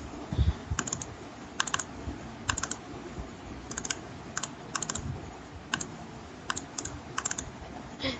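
Computer keyboard keys clicking in short irregular groups of two to four, about a dozen groups in all, with a low thump about half a second in.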